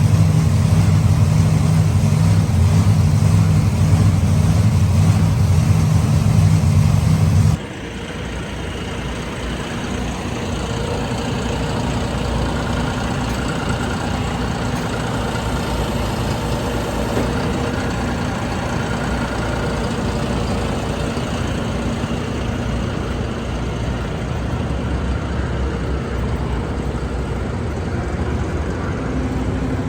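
Engine of a tractor-pull vehicle running loud and steady under load. About seven and a half seconds in it cuts off abruptly to a quieter, steady engine drone mixed with arena noise.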